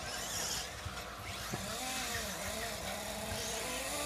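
Small radio-controlled off-road car motors running on a dirt track, their pitch rising and falling as the cars speed up and slow down, with short bursts of hiss.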